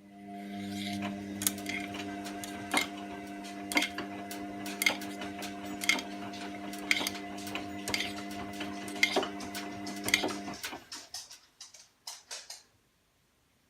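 Washing machine motor humming as it turns the drum, with a sharp click about once a second, nine in all. The hum stops about ten seconds in, followed by a few lighter clicks.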